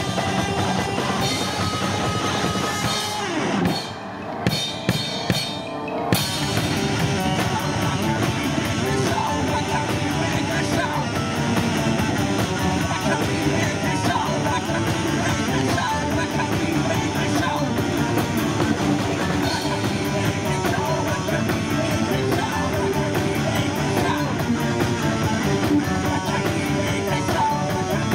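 Live rock band playing with electric guitar and drum kit. About four seconds in, the band drops out for a moment to a few separate drum hits, then the full band comes back in.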